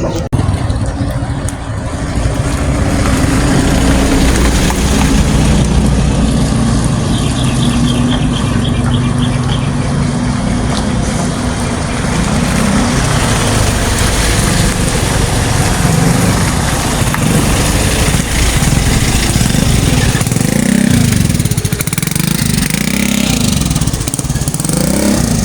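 A motor vehicle engine running steadily, its pitch rising and falling a few times near the end as it speeds up and slows.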